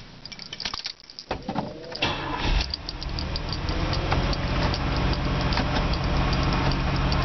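A few key clicks, then the 1984 Oldsmobile Cutlass Ciera's engine turns over and starts about two seconds in and runs steadily, growing louder, with a regular ticking. The engine has burned connecting-rod and crankshaft bearings and a known rod knock.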